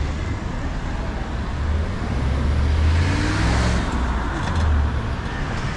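Street traffic: cars running past, one passing close about three seconds in, over a steady low rumble.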